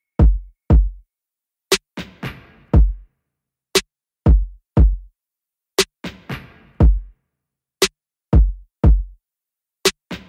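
Background music: a sparse electronic drum-machine beat of paired deep kick drums that drop in pitch, with a sharp snappy hit between the pairs, the pattern repeating about every two seconds.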